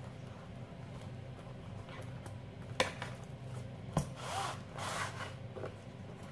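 A cardboard box of Personna GEM single-edge razor blades being handled and opened: two sharp taps about three and four seconds in, then about a second of scraping as the inner tray of blades slides out of its sleeve.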